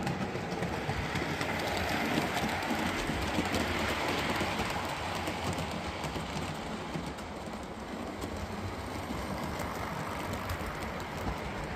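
Model train running along the layout's track: a steady rolling rumble and rattle of wheels and motor.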